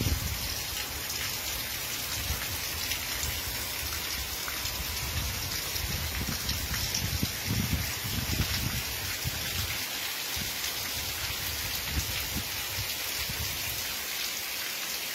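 Heavy rain pouring steadily onto the ground and roofs, an even hiss throughout. Low rumbles come and go beneath it for about the first ten seconds.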